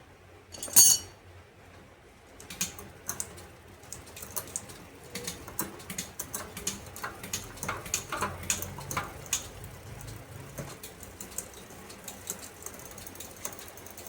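Irregular metallic clicking and clinking from hand work on a mountain bike's rear derailleur and its hanger, with one sharp, louder clink about a second in.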